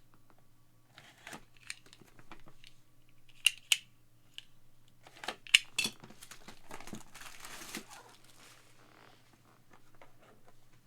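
Crinkling and tearing of packaging as a trading-card box is opened, with a few sharp clicks and taps, the loudest near the middle, and a longer crinkle afterwards.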